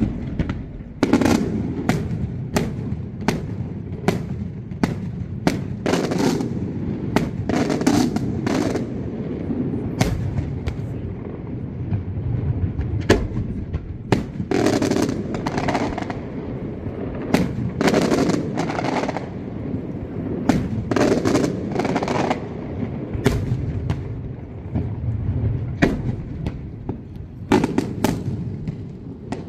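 Daylight fireworks: aerial shells bursting overhead in a continuous, irregular barrage of loud bangs, often several close together, with a low rolling rumble lingering between the reports.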